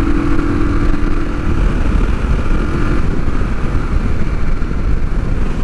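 A 1973 Honda CB450 parallel-twin engine running at road speed, with heavy wind rumble on the microphone. The steady engine note drops under the wind noise about a second and a half in and returns only briefly.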